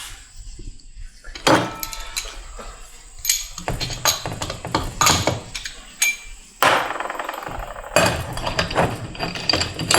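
Metal 6L80 transmission parts (planetary gears, bearings, thrust washer) clinking and knocking against each other and the bench as they are handled and fitted, a string of irregular sharp knocks with brief metallic ringing.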